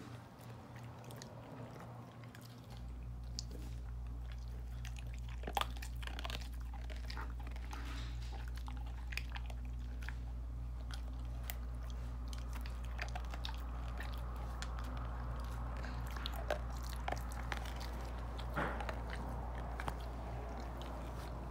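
A wolfdog crunching hard sugar-coated Jordan almonds, with irregular sharp cracks as its teeth break the shells. A steady low hum comes in about three seconds in and continues under the chewing.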